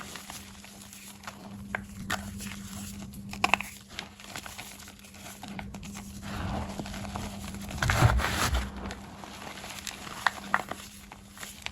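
Soft gym chalk blocks being crushed, crunching and crumbling in irregular crackly bursts with scattered sharp clicks, heaviest about two-thirds of the way through. A steady low electrical hum runs underneath.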